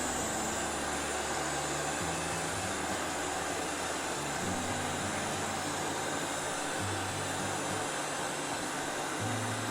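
iMartine C900 robot vacuum cleaner running, a steady whooshing hum of its suction fan and brushes, with a low hum that shifts in pitch every second or so.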